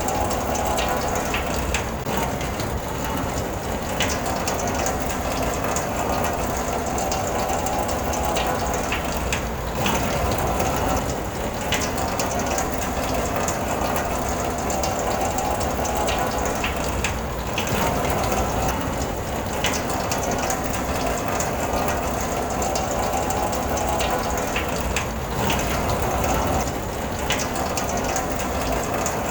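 Rain falling on a car, heard from inside: a steady dense hiss with many small ticks of drops hitting the body and glass.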